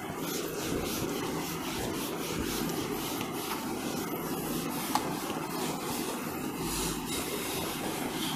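A cloth rubbing across a whiteboard in repeated wiping strokes as the board is erased, over steady background noise, with a single sharp click about five seconds in.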